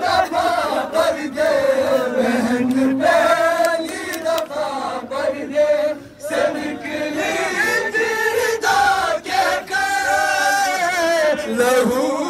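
Men's voices chanting a noha, a Shia mourning lament, together as a group.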